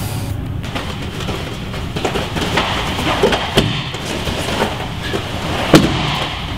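Scuffling and bare feet and bodies thumping on foam grappling mats during a clinch and takedown, with the loudest thud near the end as a body hits the mat, over a steady low rumble.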